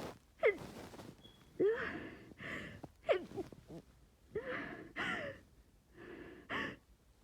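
A woman's sharp, pitched gasping breaths, about half a dozen, alternating with short breathy huffs: the hitching build-up of a sneeze with a congested head cold.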